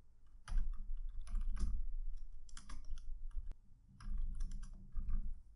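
Typing on a computer keyboard: quick runs of key clicks in two bursts, the first from about half a second in to about three and a half seconds, the second starting about four seconds in and ending shortly after five.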